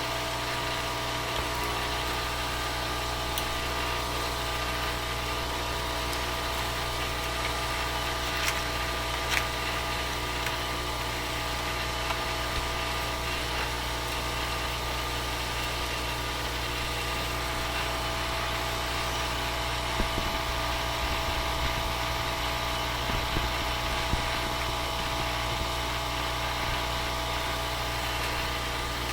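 A steady hum made of several fixed tones over a constant hiss, with a few faint, scattered clicks.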